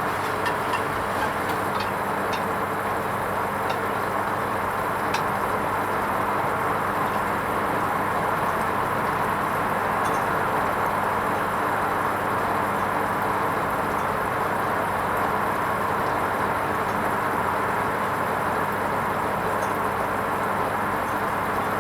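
Hoover Vision HVP16 washing machine running on its wool rinse programme, a steady, even noise with a low hum underneath and a few faint ticks in the first few seconds.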